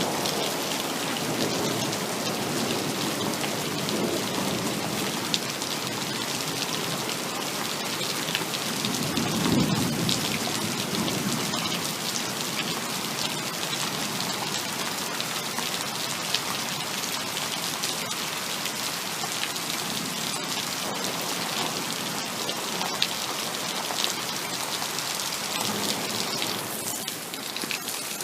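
Heavy rain falling steadily, with a low rumble of distant thunder swelling about nine seconds in and a few sharp single drop taps.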